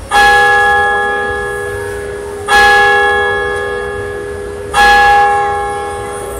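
A church bell tolling, struck three times about two and a half seconds apart, each stroke ringing out and slowly fading.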